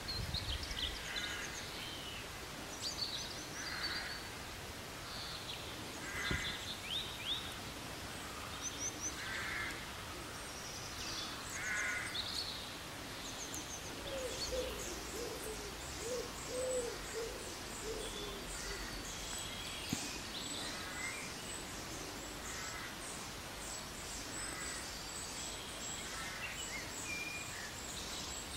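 Birds calling outdoors: short calls repeating every second or two, joined about halfway by lower, rising-and-falling calls and a fast, high chittering.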